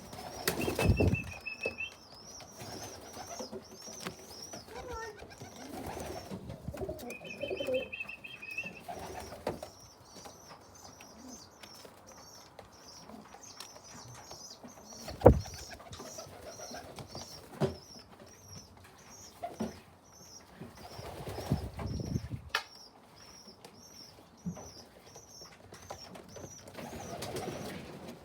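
Tumbler pigeons cooing and flapping their wings in the loft, with a quick high chirping repeating about twice a second through the second half and a few sharp knocks, the loudest about halfway through.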